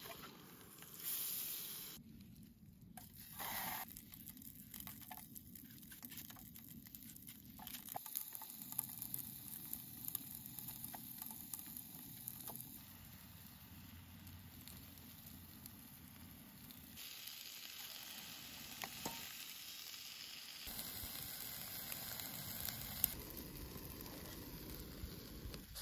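Trout, onion and mushrooms frying in butter in a small nonstick skillet on a canister backpacking stove: a faint, steady sizzle with a few light clicks of tongs against the pan.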